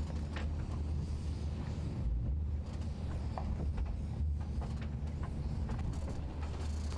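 Workboat's engine running with a steady low drone, with a few faint clicks over it.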